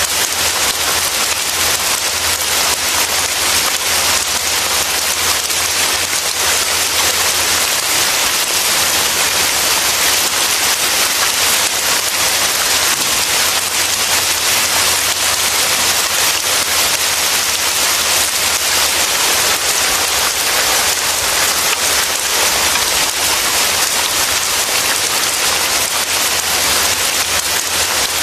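Heavy rain falling steadily, a dense, even hiss with no breaks, over a faint low rumble.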